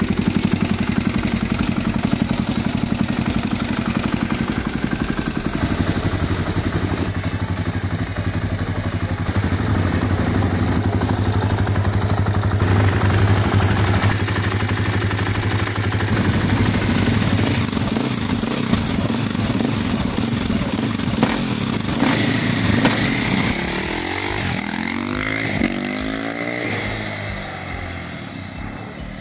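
2006 KTM 450 EXC-R single-cylinder four-stroke dirt bike with an Akrapovic exhaust, running at a steady idle whose speed shifts a few times. About 24 seconds in it pulls away hard, its pitch sweeping up and down through the gears, then fades near the end.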